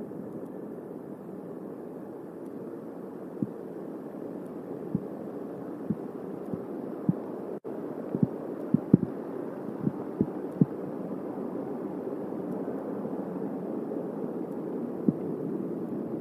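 Steady rain noise on an outdoor nest-cam microphone during a thunderstorm, with about a dozen sharp, dull taps of heavy drops striking the microphone, most of them between about three and eleven seconds in.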